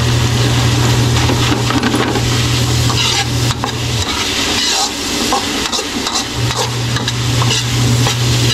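A metal ladle stirring and scraping a crumbled tofu-and-egg mixture in a wok, with a light sizzle of frying. A steady low hum runs underneath, dropping out for a couple of seconds midway.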